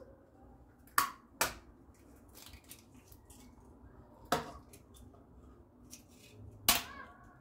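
Eggs being cracked for their yolks: sharp taps of eggshell on a hard edge, two in quick succession about a second in, then one near the middle and one near the end.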